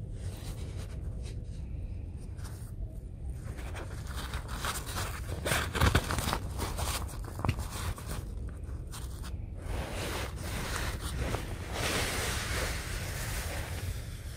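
Wet nylon tent fabric and a groundsheet webbing strap rustling and crinkling as they are handled, with a few sharper scrapes about halfway through.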